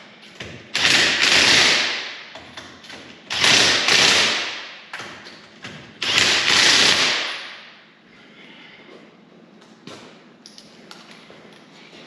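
Impact driver hammering wheel lug nuts tight in three bursts of a second or two each, then a few light taps and clicks.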